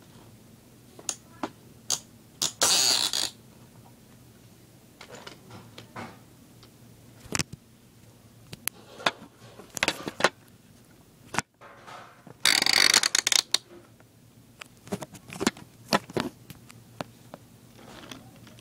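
Scattered clicks, knocks and scrapes of small hard objects being handled, with two longer scraping rattles, one about two and a half seconds in and one about twelve and a half seconds in.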